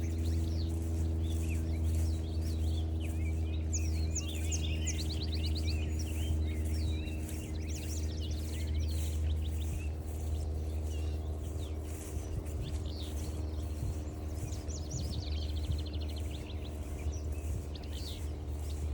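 Several songbirds singing and chirping, with quick trills and whistled notes that come and go, over a loud, steady low hum carrying a few steady tones.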